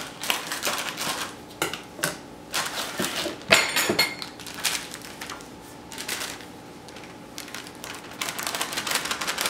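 Crinkling and rustling of a pancake mix's inner bag as it is snipped open with scissors and handled, with a sharper clatter about three and a half seconds in. Near the end the bag keeps crinkling as the dry mix is poured from it into a metal measuring cup.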